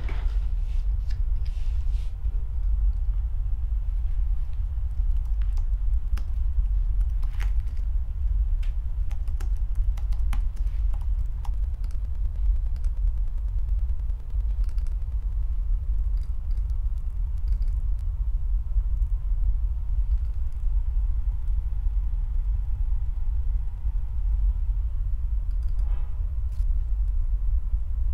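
Scattered clicks of a computer keyboard and mouse being worked, more of them in the first half and a few near the end, over a steady deep rumble.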